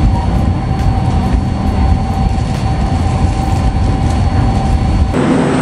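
Indonesian executive-class passenger train running slowly through the station approach, heard from inside the coach: a steady low rumble of wheels on track with a faint steady tone over it. It cuts off abruptly about five seconds in.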